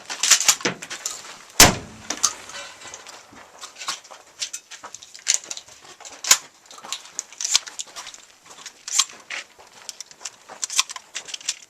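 A single shotgun shot about one and a half seconds in, then a long run of sharp metallic clicks and clacks from the shotgun and shells being handled.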